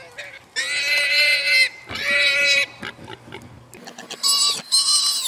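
Feral hog squealing after being hit by a .22 rifle shot: four loud, high squeals, the first about a second long and the last two shorter and higher.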